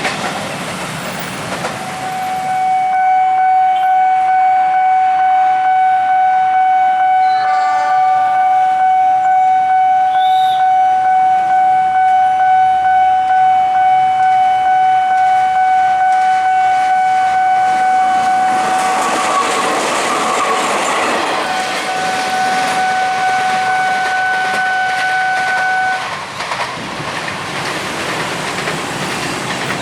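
A train horn sounds one long steady blast, the long Semboyan 35 warning, from about two seconds in until it cuts off suddenly near the end. Under it the train runs past with clattering wheels, and the rushing noise peaks a little after the middle.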